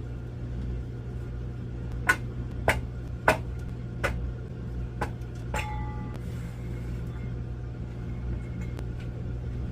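About six sharp knocks and clicks of hard objects being handled, the last one ringing briefly like glass, over a steady low machinery hum.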